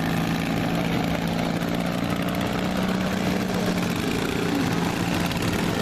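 Racing lawn mower engines running at a steady pitch.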